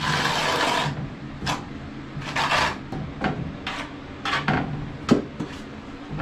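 Steel notched trowel scraping cement-based tile adhesive across the back of a tile: a long stroke at first, then shorter strokes about once a second, with a sharp tap about five seconds in.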